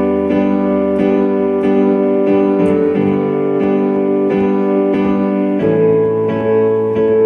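Music: a keyboard playing sustained chords that change about every three seconds, over a light steady beat.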